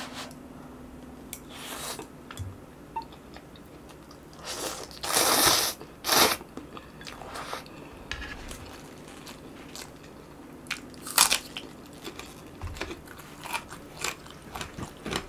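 Close-miked eating sounds of a person chewing and slurping spicy stir-fried instant noodles: many small wet clicks of chewing, with a few louder bursts about five and six seconds in and again at about eleven seconds.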